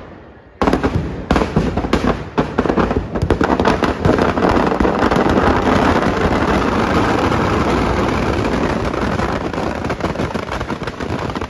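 Firecrackers packed inside a burning Ravan effigy going off. After a brief lull, separate sharp bangs start about half a second in, then thicken within a few seconds into a dense, continuous crackle of explosions.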